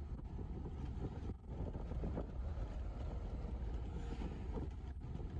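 Steady low rumble of a moving vehicle heard from inside, with wind buffeting the microphone.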